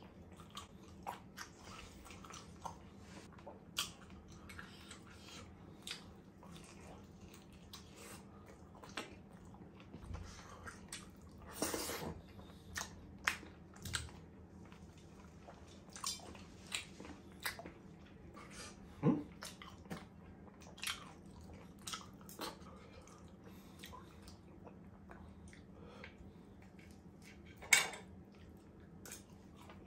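Close-miked chewing of steak and mashed potato, with wet mouth sounds and scattered sharp clicks of a fork against a ceramic plate. A faint steady low hum runs underneath.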